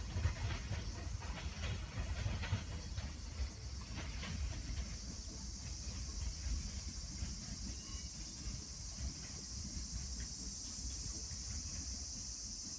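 Freight train rolling past, its wheels clicking over rail joints for the first few seconds, then a steady low rumble that gradually eases.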